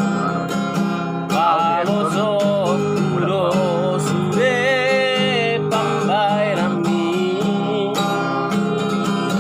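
A voice singing a slow melody with vibrato over a strummed acoustic guitar accompaniment.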